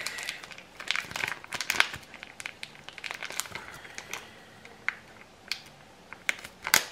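A plastic barbecue-sauce sachet crinkling as it is squeezed and worked between the fingers to empty it: a run of irregular crackles, busiest in the first two seconds, with a sharper crackle near the end.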